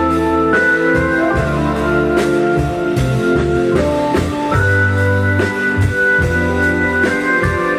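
Instrumental introduction of a slow 1960s rock ballad: organ holding a long sustained melody over a walking bass line and a slow, steady drum beat.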